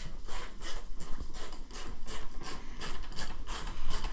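Hand ratchet wrench clicking steadily, about four to five clicks a second, as a long bolt is backed out of the Harley.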